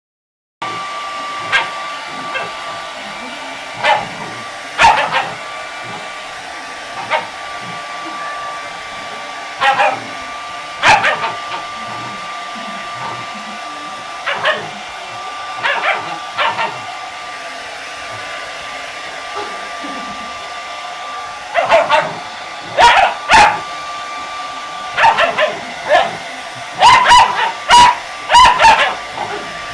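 Golden retriever puppy barking at a running hair dryer. The dryer gives a steady whine. Short barks come every few seconds and grow more frequent toward the end.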